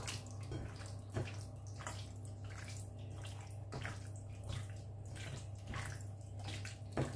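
Wet squelching of a hand kneading raw boneless chicken wings in a sticky marinade in a bowl, in irregular squishes. A steady low hum runs under it.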